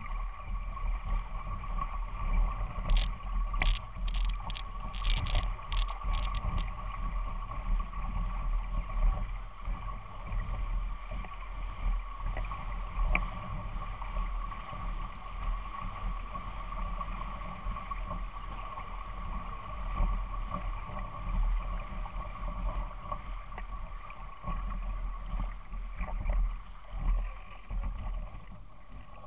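Legs wading through a shallow river, with water sloshing and splashing and a rumble on a body-worn camera's microphone, over a steady high hum. A quick run of sharp clicks comes a few seconds in.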